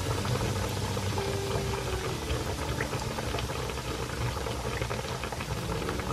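Panko-breaded chicken steak shallow-frying in hot oil in a frying pan: steady sizzling and crackling of vigorously bubbling oil, over a low steady hum.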